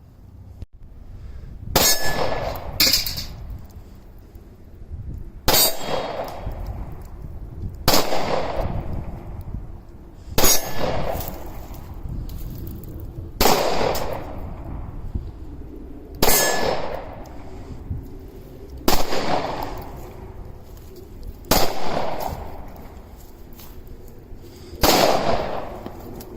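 Pistol shots, about ten in all, one every two to three seconds, each followed by the ringing clang of a steel plate target being hit.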